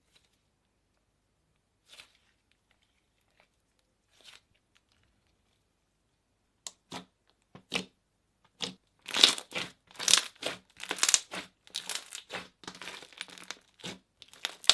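Slime being squeezed and pulled by hand, giving short sharp pops and squelches. It starts as a few faint sounds, then becomes a quick run of pops about halfway through that grows busier and louder.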